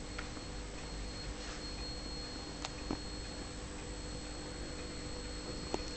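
A steady high-pitched electronic whine over a low hum, with a few faint clicks.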